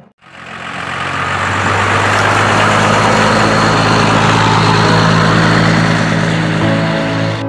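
1994 Dodge Ram 2500's 12-valve Cummins straight-six turbodiesel driving past with engine and road noise, swelling to its loudest a few seconds in and then easing off.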